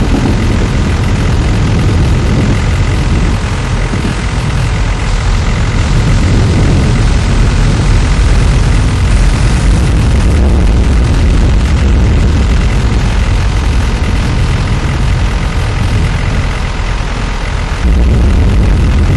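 Loud, continuous low roar of strong wind blasting the Tornado Intercept Vehicle 2 and its microphone. It jumps louder near the end.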